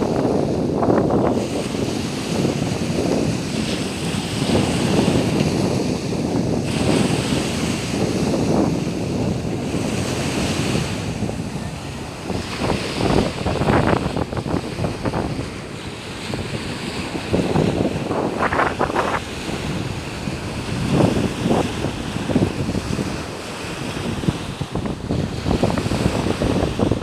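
Sea waves washing onto a sandy beach, a continuous surging noise that swells and eases, with wind buffeting the microphone in irregular gusts.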